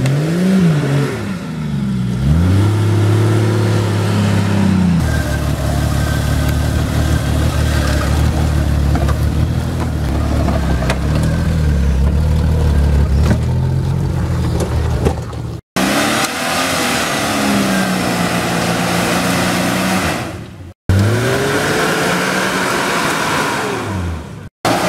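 Jeep Cherokee off-road engines revving hard on a steep muddy climb, the revs rising and falling sharply, then held steady and high for about ten seconds before swinging up and down again. The sound cuts out abruptly three times near the end.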